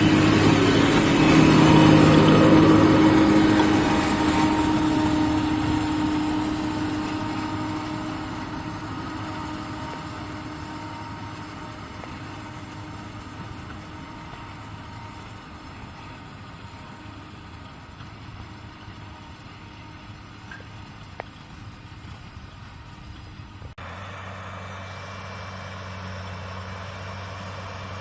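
Case Maxxum 140 tractor running while working a Maschio Falco rotary tiller. It is loud at first, then fades steadily as it moves away. About 24 seconds in the sound cuts abruptly to a quieter, steady engine hum.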